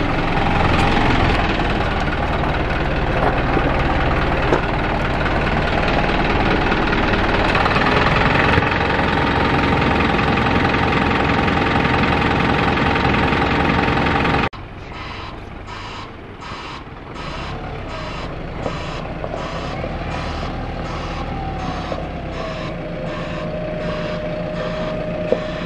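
Isuzu NPS 4x4 truck's diesel engine and drivetrain running close up as it crawls over rough ground. After a cut about halfway through, it is quieter, with the truck's reversing beeper sounding at about one and a half beeps a second over its running engine as it manoeuvres in a three-point turn.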